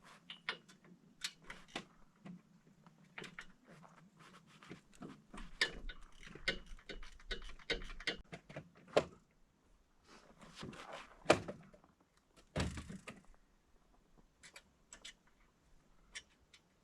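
Scattered clicks, clanks and knocks of metal hardware being handled while a tractor-mounted snowblower is unhitched. There is a sharp knock about 11 seconds in, followed by a heavier thump.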